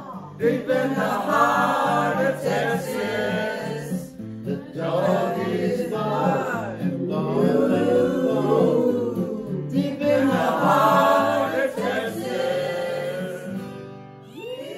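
A small group singing together over a recorded backing track with a steady stepping bass line. The music fades out near the end.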